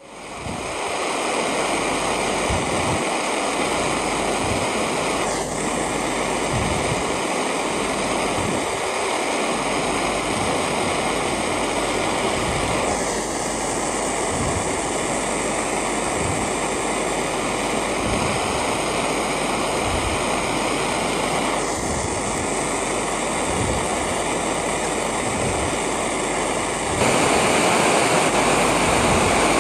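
Jeweller's torch flame blowing with a steady rushing roar while it heats gold chain links red-hot to solder their joints. It grows louder near the end.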